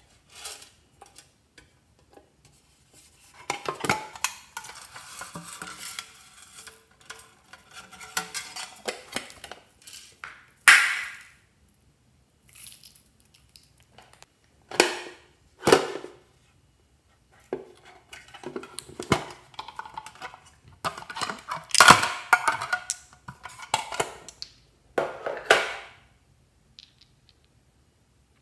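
Sequins, glitter and foil pieces sprinkled and dropped into a glass baking dish, in irregular rustling bursts with scattered small clicks. A few sharper clinks stand out, the loudest about eleven seconds in and again about twenty-two seconds in.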